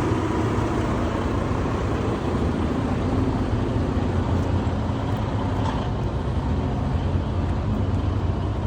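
A vehicle engine idling steadily, a continuous low hum with no change in speed.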